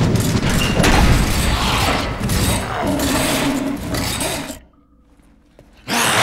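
Action-film sound mix of crashing and thudding metal impacts as a heavy steel door is hauled shut against an attacking dog. About four and a half seconds in it drops suddenly almost to silence, then cuts back in loud just before the end.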